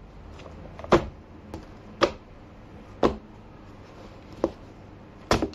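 Books and spiral notebooks being handled and set down on a wooden desk: a series of short, sharp thumps roughly once a second, five in all.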